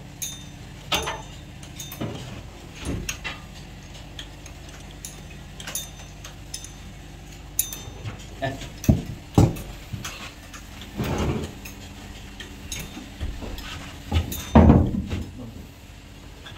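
Irregular metallic clinks and knocks of hand tools, bolts and engine parts being handled while a turbocharger is fitted to a Cummins diesel engine, with the loudest knock near the end. A low steady hum runs underneath.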